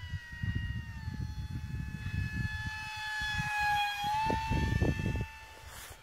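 Electric ducted-fan motor of a mini RC MiG-15 jet in flight: a high, steady whine that slides slowly down in pitch, with a rush of air growing loudest as the jet passes close about three to four seconds in, then the whine steps up a little.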